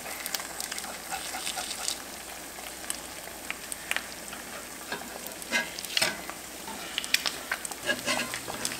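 Eggs frying in butter and oil in a cast iron skillet: a steady sizzle full of scattered pops and crackles as the edges of the whites brown and crisp. A metal slotted spatula scrapes and lifts around the egg edges against the pan.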